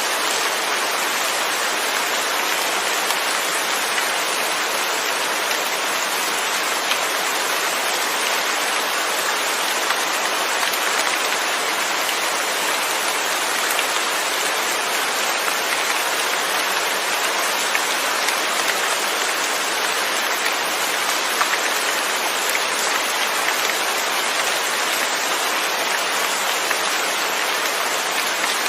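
Steady rain with no thunder: a dense, even hiss of falling rain, flecked with fine drop ticks.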